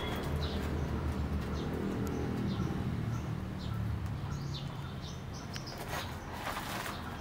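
Small birds chirping in short calls, with a low cooing underneath in the first half. A short rustle near the end as a Yorkshire terrier noses through paper cement sacks.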